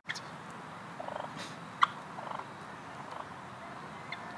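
Wild turkey hens giving a few short, rattling purrs about a second apart, with one sharp cluck about two seconds in that is the loudest sound.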